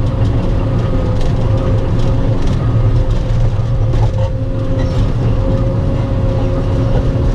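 Cat 320E excavator's diesel engine running steadily under work, with a steady whine over the low engine rumble.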